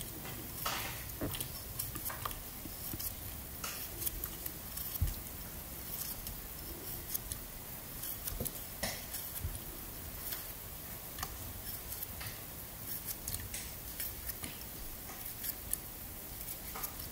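Kitchen knife slicing a peeled cucumber held in the hand, cutting diagonal pieces that drop into a pot of water: irregular soft cuts and small plops.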